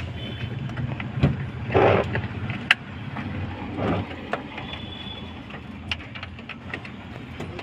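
Clicks and rustling of a car's wiring harness and plastic dashboard parts being handled by hand, over a steady low rumble. There is a louder rustle about two seconds in and another about four seconds in.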